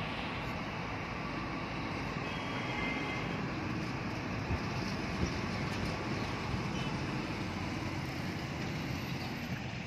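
Steady road noise of a car in motion, heard from inside the cabin: tyre and engine noise with passing traffic, with no sharp events.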